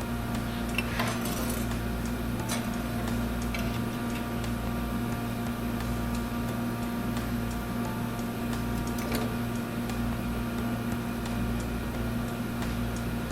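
A steady hum of several constant tones, with a few faint light clicks or taps over it.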